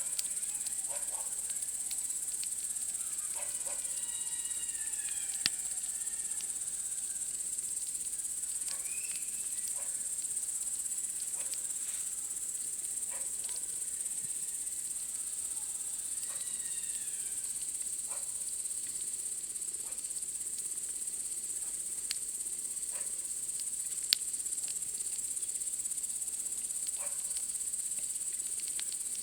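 Steady high-pitched chirring of a night insect chorus, over the crackle and scattered sharp pops of a wood campfire, two of them louder, about five seconds in and near the end. A few faint descending chirps come in now and then.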